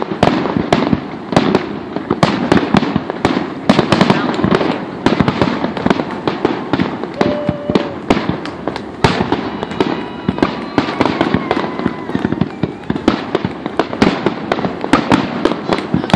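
Fireworks display: aerial shells bursting in rapid succession, several loud bangs a second, with crackling and rumbling between them.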